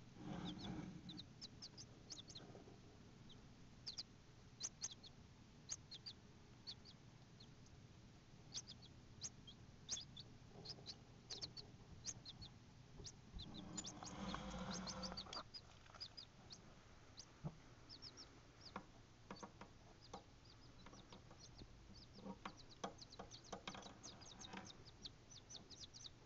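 Baby bantam chicks peeping: short, high chirps scattered throughout, coming thicker and faster in the last few seconds. A brief rustle sounds about fourteen seconds in.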